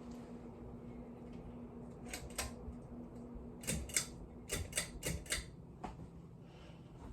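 42-inch hugger ceiling fan humming steadily, with a run of sharp mechanical clicks about two to five and a half seconds in, after which the hum settles at a lower pitch.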